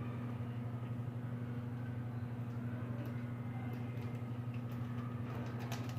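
A steady low electrical hum, with a few faint metallic clicks near the end from a pick working inside a lock.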